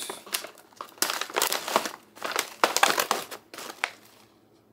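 A foil Mylar bag crinkling in a run of irregular bursts as hands pull it open and lift it. The crinkling stops about four seconds in.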